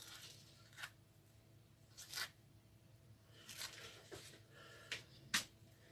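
A spoon scooping diced avocado: a handful of short, soft scrapes, spaced out, the sharpest about five seconds in.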